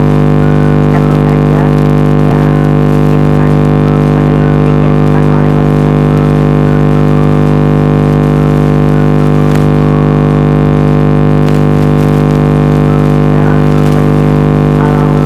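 A loud, steady electronic buzz at one fixed pitch cuts in suddenly and holds without change, an audio fault in the screen recording drowning out the faint background music.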